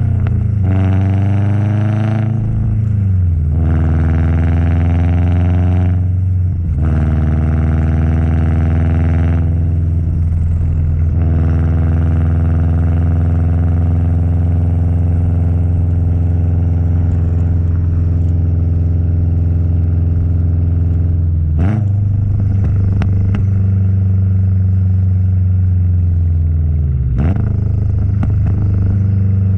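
Subaru WRX STi's turbocharged flat-four engine and exhaust under way, revving up and dropping back through several gear changes, then holding a steady cruise. Short bursts of chatter come with two more shifts near the end: turbo flutter as the throttle closes.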